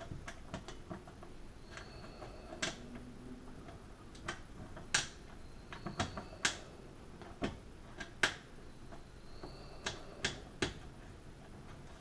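Small screws and the metal door-spring bracket of a GE dishwasher being fitted by hand, making about a dozen sharp clicks and taps at irregular intervals.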